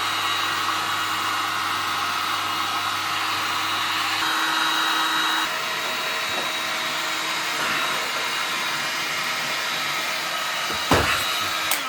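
Hot-air blower running steadily, heating the butyl sealant so the headlight lens can be pulled from its housing. A sharp knock about eleven seconds in, as the lens comes free, and the blower stops right after.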